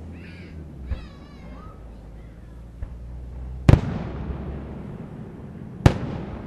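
Aerial fireworks shells bursting at a distance: two loud booms, about four and six seconds in, each trailing off, with a couple of fainter pops before them. A brief, high, wavering sound comes near the start.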